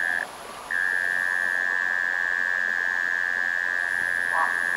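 Night-time chorus of calling animals: a loud, steady, high-pitched drone that cuts out for about half a second near the start, with a fainter, higher hiss behind it. Near the end, a couple of short, lower calls are heard.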